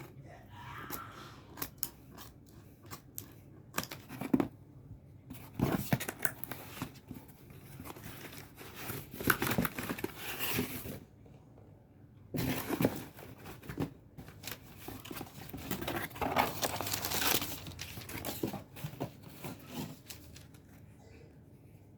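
Tablet packaging being torn and crinkled: scattered clicks at first, then two long stretches of tearing and rustling with a short pause between them about halfway through.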